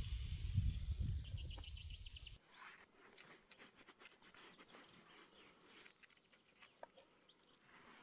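Quiet outdoor ambience: a low rumble with faint crackling over the campfire embers, which cuts off suddenly about two and a half seconds in, leaving faint scattered clicks and a few soft bird chirps.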